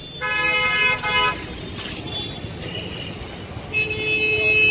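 Vehicle horns honking: one horn blast about a second long near the start, then another horn sounding steadily from near the end.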